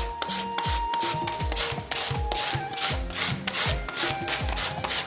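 Green radish being grated into fine shreds on a hand grater: rhythmic rasping strokes, about three a second.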